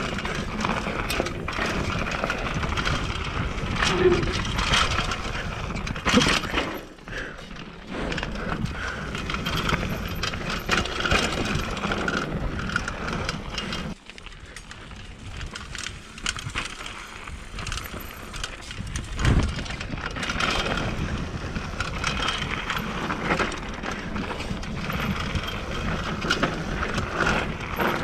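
Mountain bike descending a steep, dry, rocky trail: tyres rolling over loose dirt and rocks, with the bike rattling and knocking over bumps. There is a quieter, smoother stretch about halfway through.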